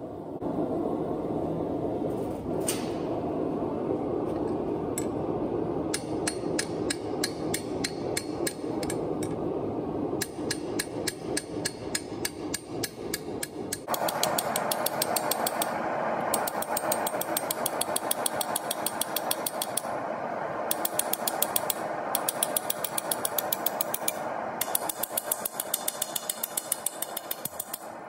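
Hammer striking red-hot steel on an anvil: a couple of single knocks, then from about six seconds in long runs of quick, evenly spaced blows, several a second, over a steady rushing noise.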